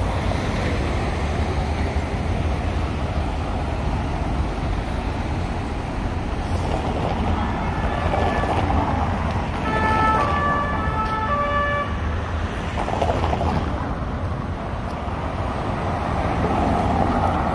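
Steady road traffic, cars driving over cobblestones. About halfway through, a faint two-note emergency siren alternates between its two pitches for a few seconds.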